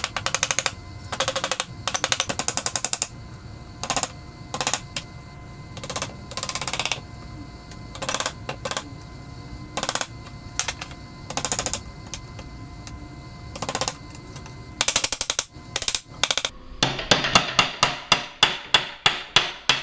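Hammer tapping at the leg joint of a wooden chair to knock it loose. The taps come in short bursts of rapid blows, then a steady run of separate blows, about four a second, near the end.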